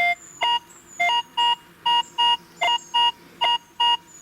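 Metal detector sounding a target signal as the coil is swept back and forth over it: a run of short electronic beeps, about two or three a second. Most beeps are at one pitch and a few are lower-pitched.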